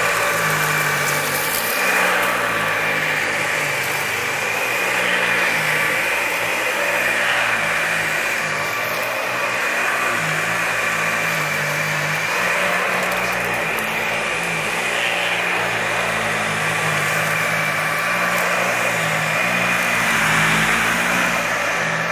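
Dyson Allergy Ball upright vacuum cleaner running continuously while it is pushed over carpet, vacuuming up dirt: a steady high motor whine over a low hum whose pitch shifts up and down a little as it moves.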